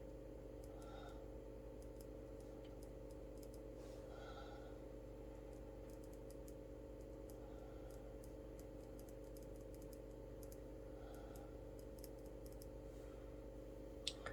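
Faint, scattered light clicks over a steady low electrical hum, with one sharper click near the end.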